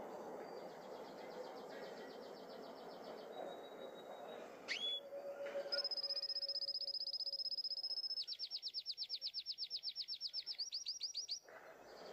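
Caged canary singing: a high trill, a quick rising note, a long steady whistled note, then a rapid trill that speeds up and breaks off sharply near the end.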